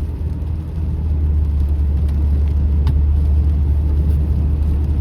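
Steady low rumble of a car's road and engine noise while driving, growing louder about a second in.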